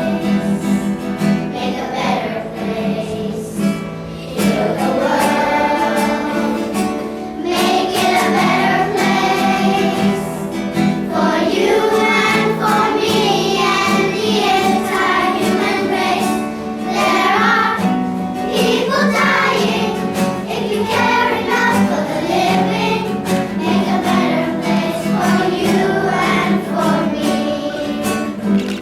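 A group of children singing a song together, with instrumental accompaniment that includes guitar.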